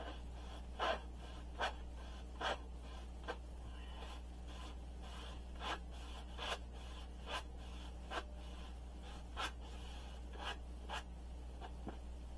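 Irregular short scratching and rubbing strokes, roughly one a second, from hand work on an amp cabinet's covering, over a steady low hum.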